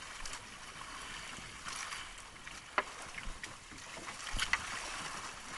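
Steady hiss of open water and wind around a small wooden outrigger boat, with a few light clicks or knocks from the boat.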